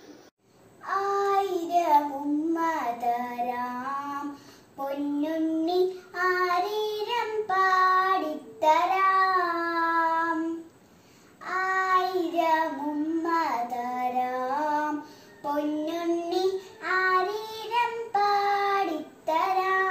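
A young girl singing solo without accompaniment, in short phrases with brief pauses between them; her singing begins about a second in.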